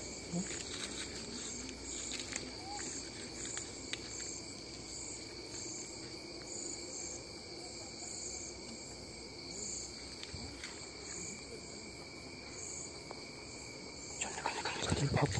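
Crickets and other night insects trilling steadily, with a higher chirp pulsing on and off. Near the end, a rising noise of rustling and footsteps starts.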